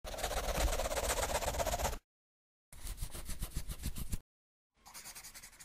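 Sound effects for an animated logo intro: three bursts of scratchy, rattling noise, each about one to two seconds long, separated by dead silence. The last one is fainter.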